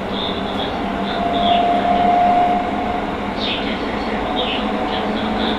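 Cabin running noise of a Hokuso 7300-series electric train with Toyo GTO-VVVF drive, heard from above its main controller. A steady hum and a steady tone sit over continuous rail noise, and the tone swells for a second or two about a second in. Short high squeaks come and go.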